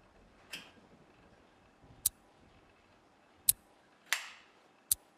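Sharp clicks, three of them evenly spaced about a second and a half apart, with a couple of softer swishing sounds in between over a faint background.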